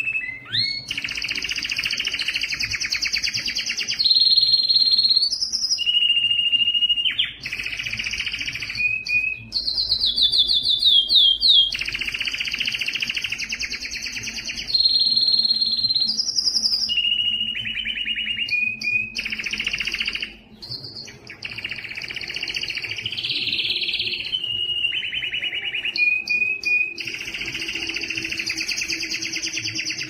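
Canary singing one long, nearly unbroken song: fast trills alternate with steady whistled notes, each phrase held for one to three seconds before the next begins, with one short break about two-thirds of the way through.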